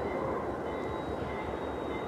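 Diesel locomotives of a departing CN freight train running, a steady low noise.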